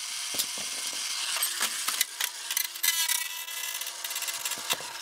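Maruni 2000 hand mixer's small electric motor running with its casing smashed, making a rough grinding and crackling noise over a steady hum, with a few knocks as the unit is hit.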